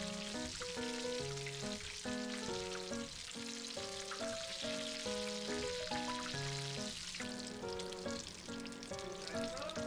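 Battered shrimp tempura deep-frying in hot oil, sizzling steadily, with light background music.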